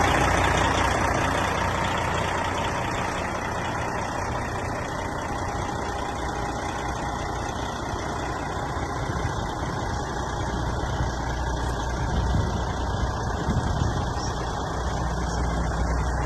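Diesel engine of a front-discharge concrete mixer truck idling steadily.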